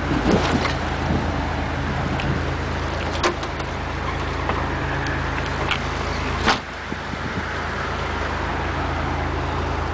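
Toyota off-road truck's engine running steadily as it wades through a river, with water rushing and splashing around the body. A few knocks cut through, the loudest about six and a half seconds in.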